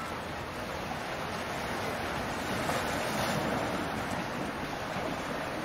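Steady rush of water and wind, swelling a little about halfway through.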